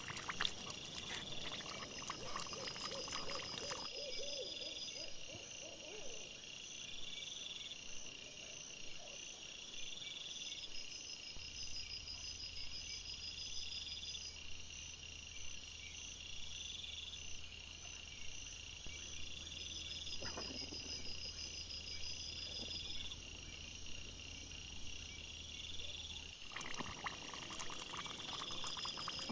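Night insects chirping: a short high call repeats about every two seconds over a steady high trill. Wild boar rustle and root in the ground close by, mostly in the first few seconds and again near the end.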